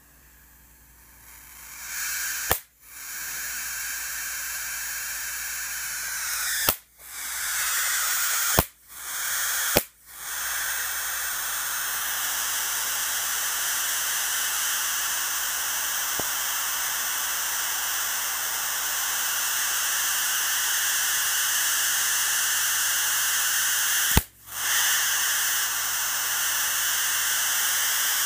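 High-voltage arc from a flyback transformer lead drawn to a metal chassis: a loud, steady hiss with a thin high tone in it, starting about a second in. Five times it snaps and drops out for a moment, then strikes again.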